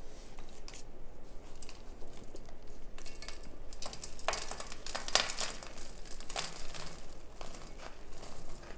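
A metal spoon scraping and digging into packed Argo cornstarch in a torn-open cardboard box, with the box crinkling. The crackling is densest about four to six seconds in.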